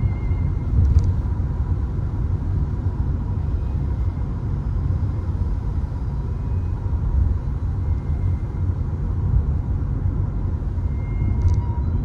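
Steady low rumble of a Peugeot 3008 on the move, road and engine noise heard from inside the cabin, with faint ticks about a second in and near the end.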